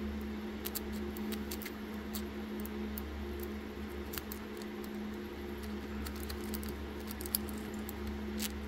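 A tool working inside an Artago Secure 70 mm rectangular padlock to bypass it: faint, scattered small metallic clicks and scratches, with a sharper click about seven seconds in and another near the end. A steady low hum runs underneath.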